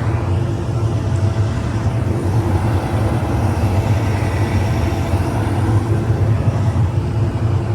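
Steady low engine drone of heavy farm machinery running at an even speed.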